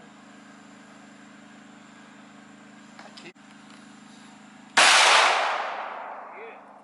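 A single 9mm Glock pistol shot about three-quarters of the way through, sudden and loud, its echo dying away over about two seconds.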